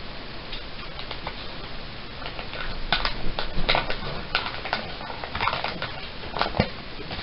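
Plastic toy packaging being torn open and handled, with irregular crinkling and crackling that grows denser about two and a half seconds in.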